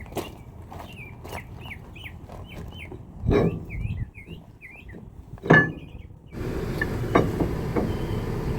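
Hammer blows on the drive-axle flange of a Volvo semi tractor, knocking loose the wedge cones that hold the axle in. Several knocks sound, two of them louder, about three and a half and five and a half seconds in, while small birds chirp over and over. For the last couple of seconds a steady background hum comes up.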